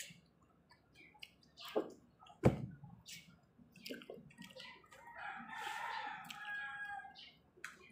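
Close-up chewing and mouth clicks while eating sliced cucumber, with a sharp thump about two and a half seconds in. A rooster crows once in the background for about two seconds, starting about five seconds in.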